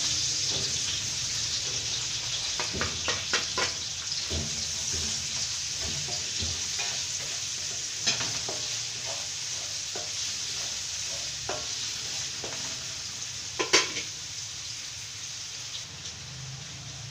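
Chopped onions frying in oil in a large aluminium wok, with a steady sizzle. A spatula scrapes and knocks against the pan while stirring, the loudest knock about fourteen seconds in.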